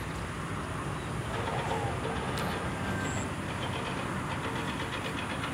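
Distant motor traffic: a steady low hum of engines and road noise, swelling slightly about one and a half seconds in.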